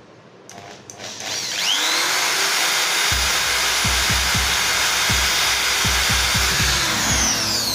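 Handheld electric drill spinning up with a rising whine, then running steadily as it bores through a PVC pipe coupling, with irregular low thuds from about three seconds in. Near the end the motor winds down with a falling whine.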